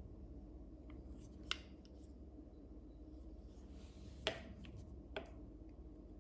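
Faint handling noises from the antique pistol being turned over in the hands: three light clicks, one about a second and a half in, one around four seconds in with a soft rub, and one near the end, over a low steady hum.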